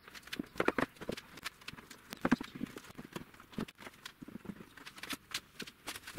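Irregular wooden knocks and clatter as jarrah stand parts are handled and fitted together during a glue-up.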